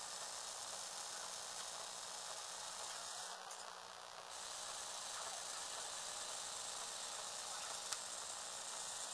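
Small electric motor and plastic gear train of a motorized Lego Technic box driving its segmented lid: a steady high whir that stops for about a second about three and a half seconds in, then runs again. There is a single sharp click near the end.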